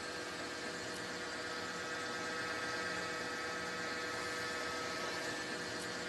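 Steady hum over an even hiss, with several constant tones and no distinct knocks or clicks.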